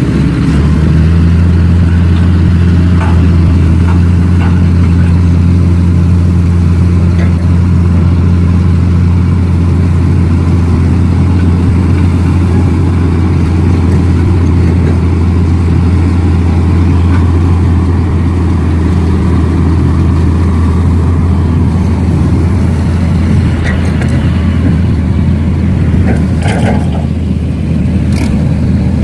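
Steady, loud low engine drone holding one pitch, with a couple of short knocks near the end.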